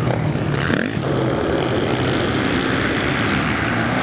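Motocross bikes' engines running on the race track, several machines mixed together in a steady drone, their pitch rising and falling as the riders work the throttle.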